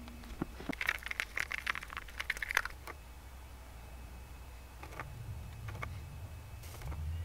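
Plastic crackling and clicking as a small plastic bottle's cap is twisted open, starting about a second in and lasting about two seconds. A few faint ticks and scrapes follow as a small metal tool dabs glue around a steel bearing set in a hickory block.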